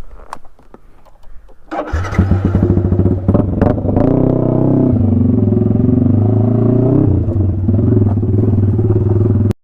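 Yamaha R15 V3's single-cylinder engine starting about two seconds in and settling into a loud, steady idle with no throttle. It breathes through a free-flow SC Project exhaust with no dB killer, which gives a heavy booming note.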